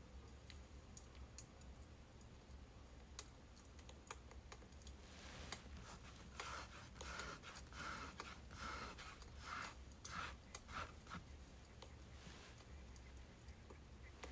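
Faint crackling of burning birch logs, with sparse sharp pops. About five seconds in, a run of soft scratchy strokes, roughly one or two a second, lasts for several seconds.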